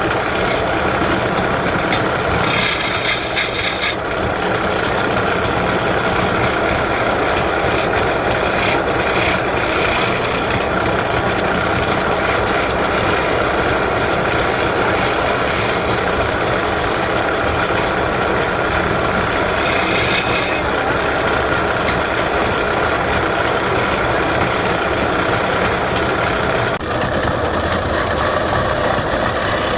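Wood lathe running steadily while a tool scrapes the spinning plywood. The sound changes abruptly near the end, losing its higher part.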